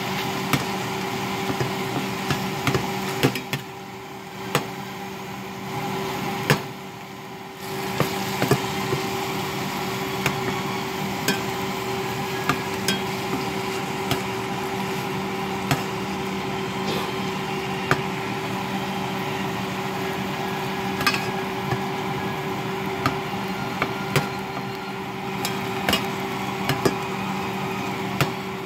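Ground pork and onions sizzling in an enamel pot while a metal spoon stirs them, knocking and scraping against the pot in frequent short clicks, over a steady hum.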